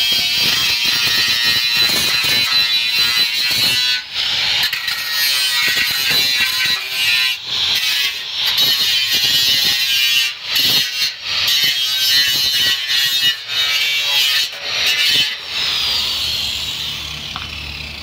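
Angle grinder grinding down the plasma-cut edge of a sheet-steel car fender: a loud, high-pitched grinding whine, broken by brief gaps as the disc lifts off the metal. Near the end it is switched off and winds down in a falling whine.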